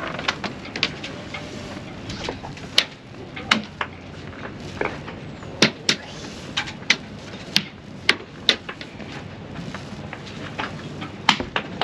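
A fabric sunshade and its line being handled and hoisted in a breeze: a steady rush of air with a dozen or so sharp, irregular snaps and knocks.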